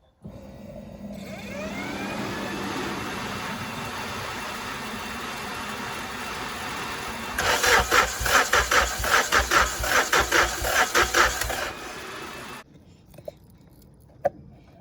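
Starter cranking a K-series engine swapped into a Honda CRX, which turns over for about twelve seconds without firing: a rising whine as the starter spins up, then a loud rhythmic pulsing chug in the second half before it stops abruptly. The crank-no-start comes from no spark reaching the plugs.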